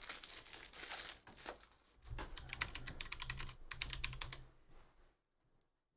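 Rapid light clicking like typing on a computer keyboard, in two quick runs with a short break between them, stopping about five seconds in.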